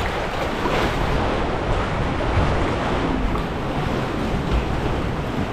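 Sea water sloshing and washing against the rock inside a sea cave, a steady surge of noise, with wind rumbling on the microphone.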